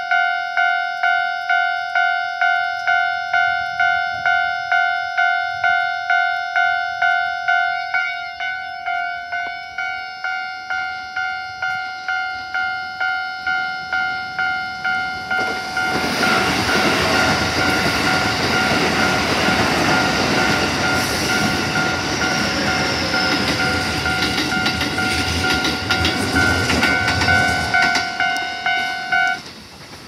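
Japanese level-crossing alarm ringing its electronic bell, about three strikes every two seconds. About halfway through, a Keikyu train runs over the crossing with loud, steady wheel-on-rail noise. Near the end the alarm and the train noise both cut off.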